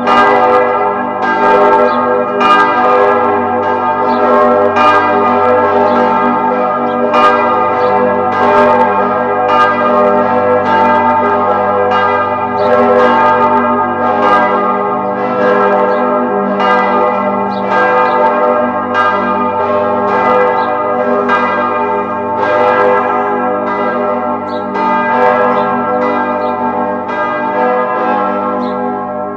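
Church bells ringing together in a continuous peal: a new strike about every half second lands over the long ring of the earlier ones.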